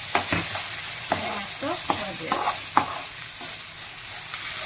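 Onion and squid masala sizzling in a non-stick frying pan, just wetted with a little water, while a metal spoon stirs and scrapes it. There are several sharp scrapes in the first three seconds, then a steady sizzle.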